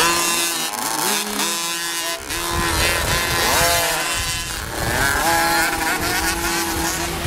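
Several youth 50cc and 65cc two-stroke motocross bikes revving, their engine pitch rising and falling in overlapping sweeps.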